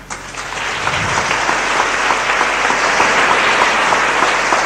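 A congregation applauding, the clapping swelling over the first second and then holding steady.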